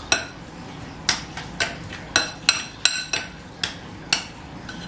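A metal spoon clinking and knocking against the pan while stirring a spinach and ricotta mixture: a run of about nine sharp, briefly ringing clinks at an uneven pace, roughly two a second.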